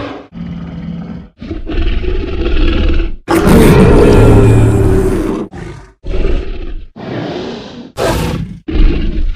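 A string of separate dinosaur roar and growl sound effects for a Tyrannosaurus rex, about ten short clips one after another with brief gaps. The longest and loudest roar comes about three and a half seconds in and lasts about two seconds.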